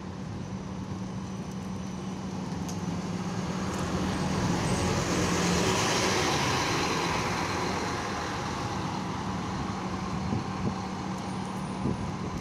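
Scania K310UB diesel city bus pulling away and driving past close by. Its engine and tyre noise swell to a peak about halfway through, then fade as it moves off.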